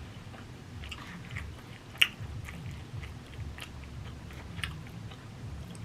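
A person chewing a mouthful of steak, rice and beans, with small wet mouth clicks throughout. One sharp click comes about two seconds in.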